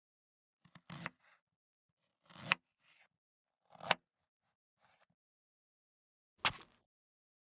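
Kitchen knife slicing through food on a cutting board: four slow, separate cuts spaced a second or two apart, each a short scraping swish that ends in a sharp click.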